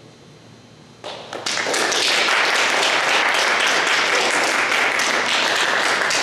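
Audience applauding: a crowd of hands clapping that breaks out about a second in and quickly builds to a loud, steady applause.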